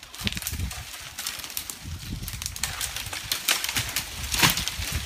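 Footsteps crunching and brushing through dry leaf litter and twigs, with irregular snaps and crackles and a louder crackle about four and a half seconds in; a low uneven rumble runs underneath.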